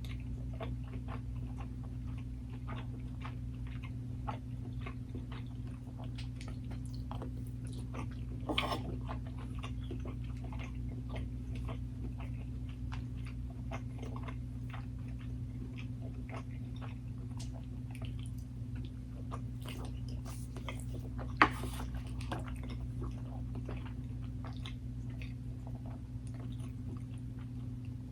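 Close-miked eating: a person chewing and biting food, with many small, irregular wet mouth clicks over a steady low hum. A louder click comes about eight seconds in and a sharper one about 21 seconds in.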